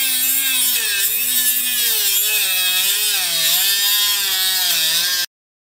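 Dremel rotary tool with a cutoff wheel grinding through a corroded seat-mounting bolt, a high whine that wavers in pitch as the wheel bites into the metal. It cuts off suddenly near the end.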